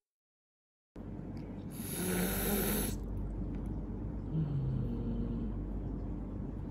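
A cat hisses once, sharply, about two seconds in, with low, rough growls coming and going afterwards. Defensive cat vocalizing during a first meeting with unfamiliar cats.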